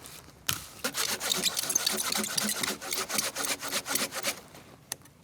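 Rapid rasping strokes on wood, dense and uneven, starting about a second in and stopping after about four seconds.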